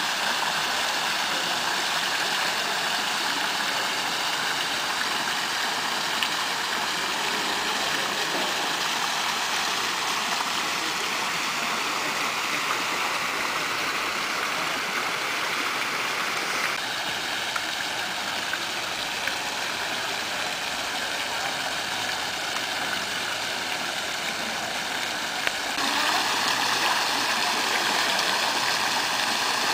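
Water pouring steadily down an artificial concrete waterfall, a constant rushing splash. Its tone shifts slightly just past halfway and it grows a little louder a few seconds before the end.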